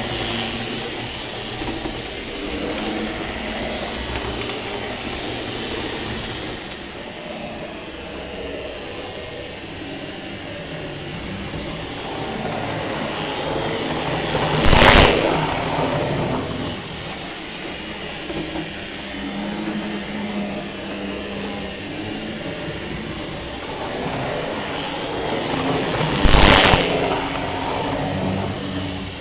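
Model trains running on the track: the steady whir of small electric motors and the rattle of wheels on rails. It swells loudly twice, about halfway through and again near the end, as a train passes close by.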